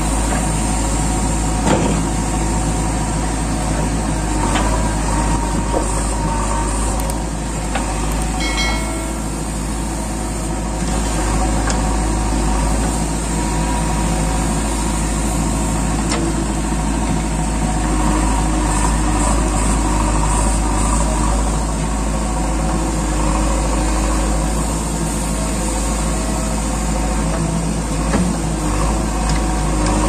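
JCB 3DX backhoe loader's diesel engine running steadily under digging load as the backhoe arm and bucket work, with a few short knocks along the way.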